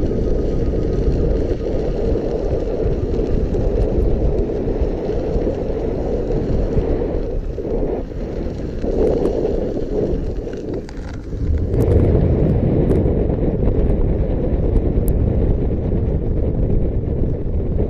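Wind buffeting the microphone of a rider moving on an electric unicycle, a steady low rumble that eases about ten seconds in and then picks up again.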